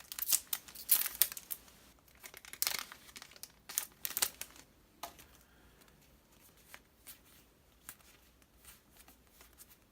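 Trading card booster pack wrapper being torn open and crinkled, a dense run of crackling for the first few seconds, then fainter scattered clicks as the cards are handled.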